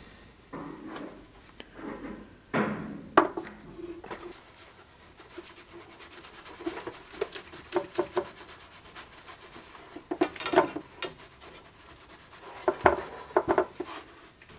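Handling noise of a sword hilt on a bench: a rag rubbing paste or wax onto the steel pommel and guard, with scattered clicks and knocks as the sword is moved. The knocks come loudest about three seconds in and again near ten and thirteen seconds.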